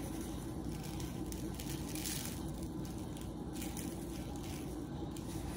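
Steady low background hum, even throughout, with no distinct sounds standing out.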